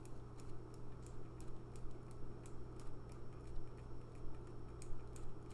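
Light, irregular clicking, several small clicks a second, over a steady low hum.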